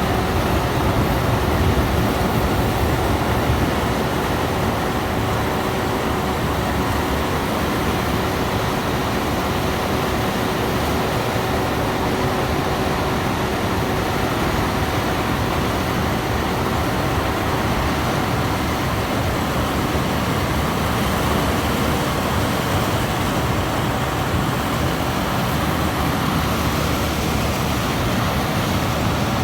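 Rice-harvesting machine's engine running steadily under load, with a faint steady whine over the rumble that fades out about halfway through.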